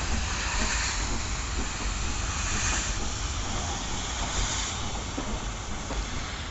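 LMS Princess Coronation class steam locomotive 46233 'Duchess of Sutherland' moving slowly, with a steady hiss of steam from its open cylinder drain cocks over a low rumble.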